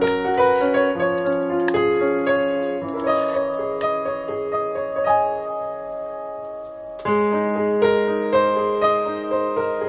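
Background piano music: a gentle melody of single notes over held low notes. The phrase fades, and a new one starts sharply about seven seconds in.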